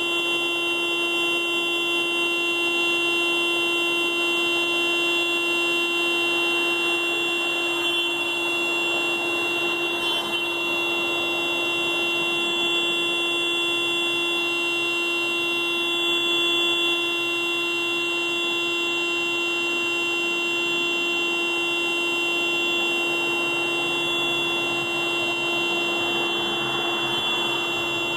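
Car alarm sounding one continuous steady tone, unbroken and unchanging in pitch.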